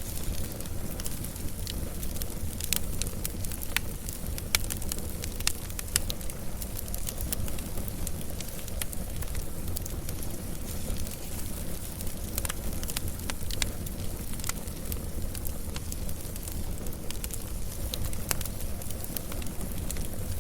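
Wood fire burning, with a steady low rumble and frequent sharp, irregular crackles and pops.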